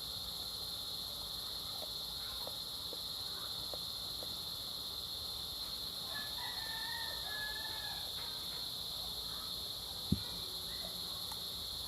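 Steady high-pitched insect chorus, with a fowl's call lasting about a second and a half in the middle and a single sharp click near the end.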